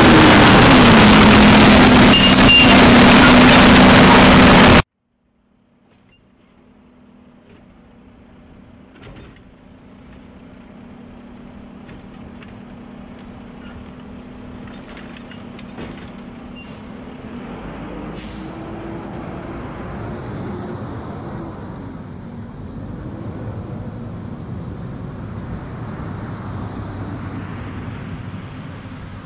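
A loud rushing noise cuts off abruptly about five seconds in. Then a Mack automated side-loader garbage truck is heard: its diesel engine runs steadily, with short air-brake hisses and clicks as its hydraulic arm grabs and tips a wheeled trash cart. The engine tone rises and falls as the arm works and the truck pulls away.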